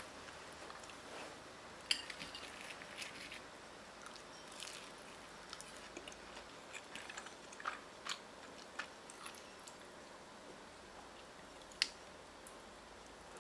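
A person eating close to the microphone: chewing with crisp crunches and scattered sharp clicks, the loudest about two seconds in and near the end.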